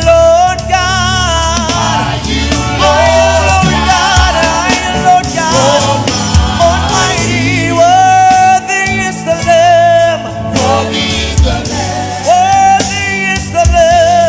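Live gospel worship music: a singer holding long notes with vibrato over a band with bass and drums.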